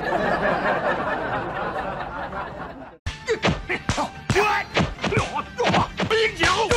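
Background music; after a sudden break about three seconds in, it picks up with a steady beat of strikes, about three a second.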